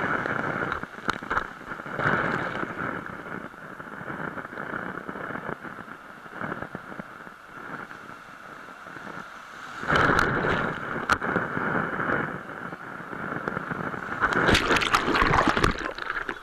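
Sea surf washing up the beach and over a microphone at the water's edge: a rushing, fizzing wash that swells three times, at the start, about ten seconds in and again near the end.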